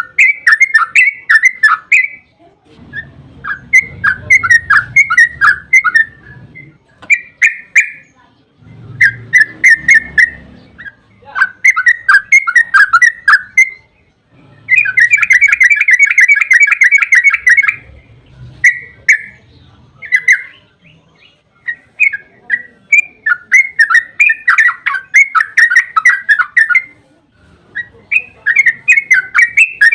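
Trucukan (yellow-vented bulbul) singing its long, fast chattering song: bubbly phrases of quick notes, each a couple of seconds long, repeated with short pauses, with one longer, denser trill in the middle.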